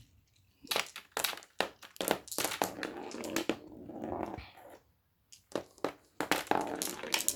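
Glass marbles clicking and clattering against each other and the track as they are handled, in a run of irregular sharp clicks with short rattling stretches.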